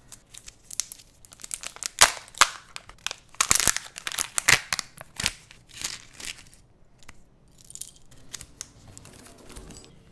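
Crinkly foil wrapper of a Kinder Joy egg torn and crumpled open by hand, a dense run of sharp crackles and tearing. After about six seconds it gives way to softer rustling of plastic and paper.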